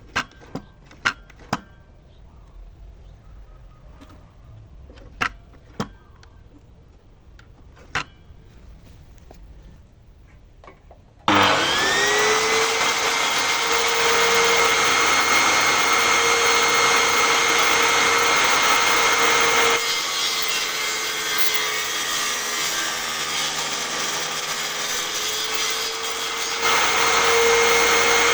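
A few scattered knocks, then a table-saw motor starts about 11 seconds in and spins up to a steady whine. It slows slightly for several seconds as it cuts wood, then runs free again near the end.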